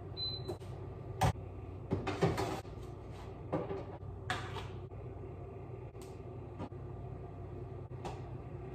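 Kitchen handling sounds at a countertop air fryer oven: a string of separate clicks and knocks, the sharpest about a second in, over a steady low hum.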